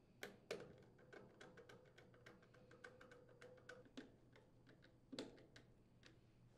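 Faint, irregular small clicks and ticks of a hand nut driver turning screws into a plastic air filter cover, with a few sharper clicks near the start and about five seconds in.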